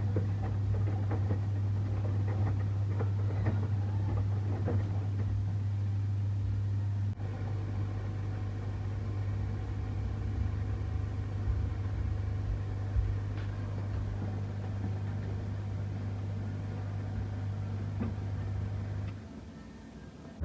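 Samsung washing machine running with a steady low motor hum and light rattling; the hum stops about a second before the end.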